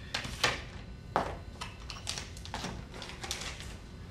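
Clear plastic parts bag rustling as it is opened and emptied, with a few short knocks and clicks as small parts are laid down on the table.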